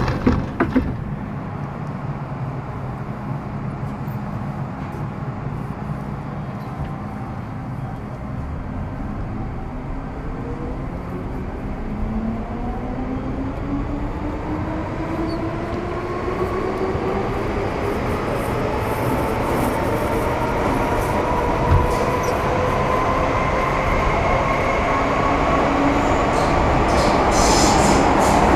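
Inside a Metro Cammell M-Train (C-Stock) EMU pulling away. A few knocks at the start give way to the rumble of the moving car, and from about ten seconds in the GEC GTO chopper and traction motors add several whines that climb steadily in pitch as the train accelerates, growing louder toward the end.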